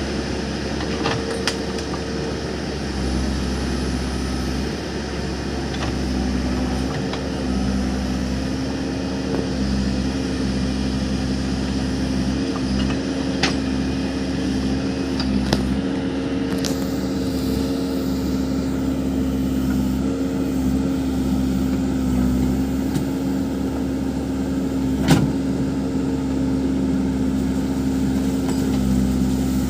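Backhoe loader's diesel engine running steadily under work, with a few sharp metallic knocks, the loudest about 25 seconds in.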